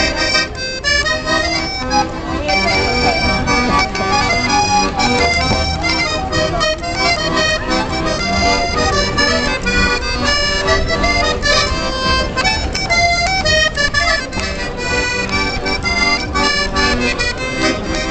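Piano accordion playing a lively tune in quick successive notes.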